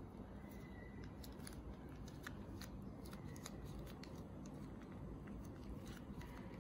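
Faint crinkling and clicking of a plastic seasoning sachet squeezed by hand as thick paste is pressed out, over a low steady background hum.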